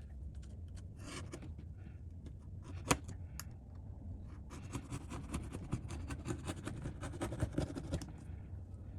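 A hand tool scraping and picking at old adhesive tape and glue on an iPad's frame, a run of small dry scrapes and clicks, with one sharp click about three seconds in.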